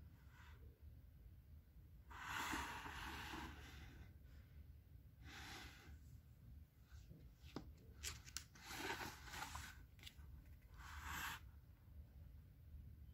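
Quiet handling of a paperback picture book: paper rustles and a page turning over about eight seconds in, with a few light taps. Soft breath-like rushes of noise come every few seconds.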